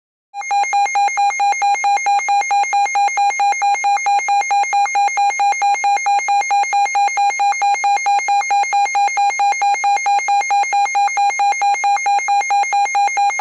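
Electronic alert tone: a harsh, buzzy beep near 800 Hz pulsing rapidly at an even rate, starting about half a second in. It is the attention signal that precedes an emergency fire-warning broadcast.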